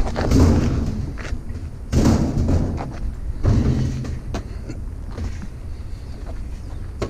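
Three heavy thumps and clunks of a metal washing machine being shifted on a trailer, with a few sharp knocks between them over a steady low rumble.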